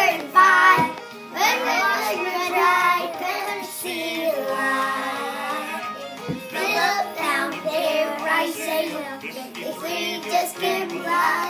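Two young children singing a gospel song along with musical accompaniment.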